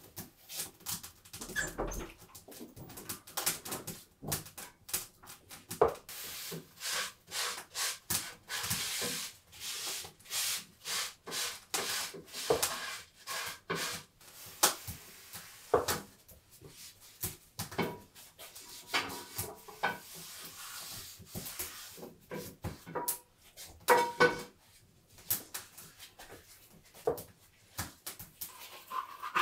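A steady run of short knocks, clicks and rubbing from kitchen work: raw meat slices being handled and laid on plates, and dishes and pots being set down.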